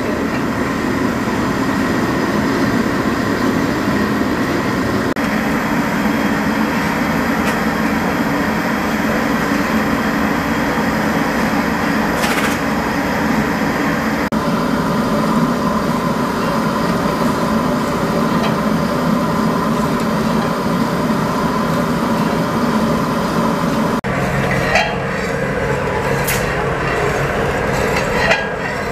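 Steady noise of a large stove burning under a wide kadhai of buffalo milk simmering down for kalakand. In the last few seconds a steel stirring rod scrapes and clinks against the pan.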